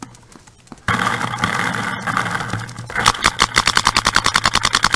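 An electronic paintball marker firing a rapid string of shots, about twelve a second for roughly two seconds near the end. Before that, starting about a second in, there is a loud, steady noise.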